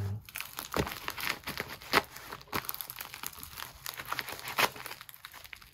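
Plastic bubble mailer crinkling and crackling in irregular sharp bursts as it is handled and cut open. The crackles thin out near the end.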